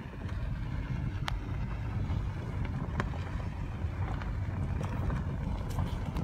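Steady low rumble of a car driving along, with wind buffeting the microphone and road noise. Two brief faint ticks, one about a second in and one about three seconds in.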